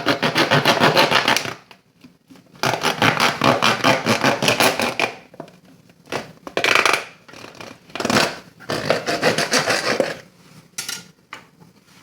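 A knife sawing through a plastic Coca-Cola bottle: quick rasping back-and-forth strokes in about five runs, with short pauses between them.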